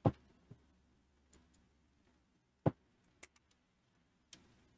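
A few sharp clicks and taps of equipment being handled on an electronics workbench. The loudest comes right at the start and another about two and a half seconds in, with lighter ticks between, over a faint low hum.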